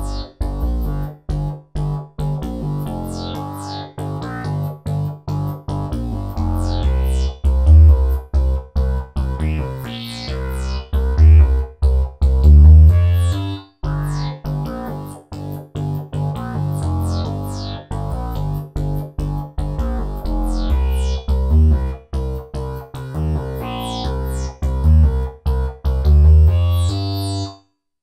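Novation MiniNova synthesizer playing a preset bass patch: a choppy low bass riff of short notes with falling sweeps high up. The phrase stops briefly about halfway and then plays again.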